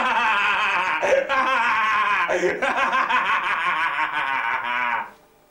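People laughing hard, the laughter running on and then cutting off suddenly about five seconds in.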